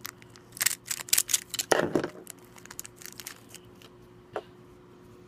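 A small ring wrapper being opened by hand: a quick run of sharp crinkling and snipping clicks over the first two seconds, then one more click a little before the end.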